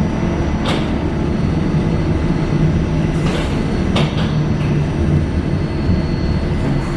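Buffalo Metro Rail light-rail car running through an underground tunnel, heard from inside the car: a steady low rumble of wheels and running gear with a few sharp clacks, one about a second in and two more around three and four seconds in.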